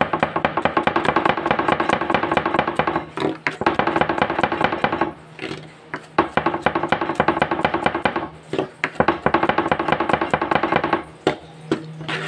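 Kitchen knife mincing garlic on a plastic cutting board: rapid, even chopping strokes with a ringing tone, in four runs broken by short pauses, the last one ending about a second before the end.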